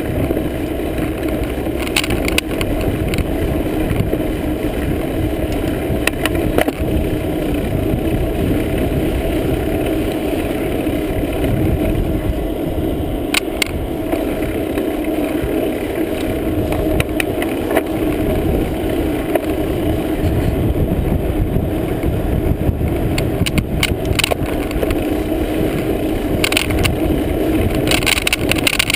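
Steady rumble of wind buffeting the microphone of a camera carried on a moving bicycle, mixed with tyre and road noise. A few sharp clicks or knocks break in now and then.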